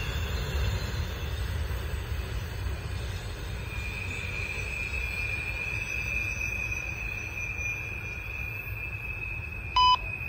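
Freight train's last cars rolling away: a low rumble of wheels on the rails, with a steady high wheel squeal on the curved track setting in about a third of the way in. Near the end comes a short, loud electronic beep from a scanner radio.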